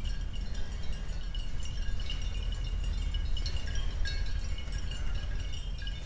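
Outdoor bird and insect chorus: a steady high trill with short chirps at several pitches scattered through, over a low rumble.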